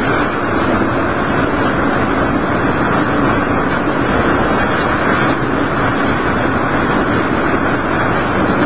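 Steady running noise of a diesel railcar heard from inside the cabin: engine and wheels on the rails, loud and even throughout.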